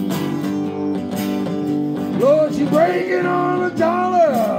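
Live acoustic blues on guitars, an archtop and acoustic guitars strumming and picking chords. About two seconds in, a bending, wavering melodic line comes in over the chords.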